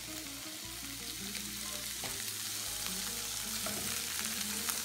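Carrots, celery and onion sizzling steadily as they sauté in a nonstick frying pan. A few light clicks come from the silicone spatula stirring against the pan.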